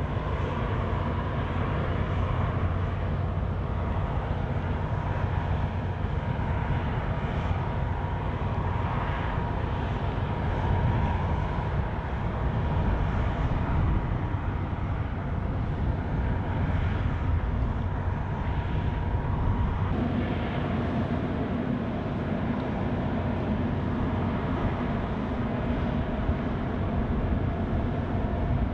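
Steady low drone of ship engines and harbour machinery across the water, with a faint steady whine. About two-thirds of the way through the sound changes and a somewhat higher hum comes in.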